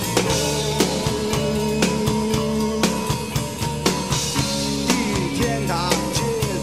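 Live rock band music: a drum kit keeps a steady beat under sustained bass and chord tones. A male singer's voice comes in near the end.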